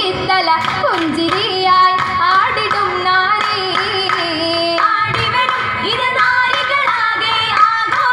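Female voices singing a Mappila song for an Oppana dance, with hand claps keeping time.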